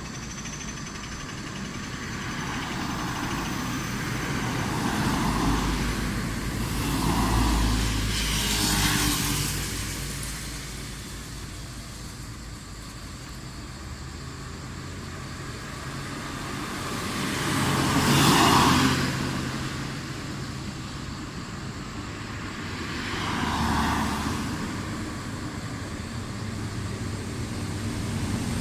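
Road traffic: several cars passing one after another, each a swell of engine and tyre noise that rises and fades away. The loudest pass comes about two-thirds of the way through.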